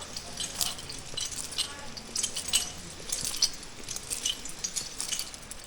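Metal climbing hardware (carabiners and nuts on a harness gear loop) clinking and jangling in a run of light, irregular clinks.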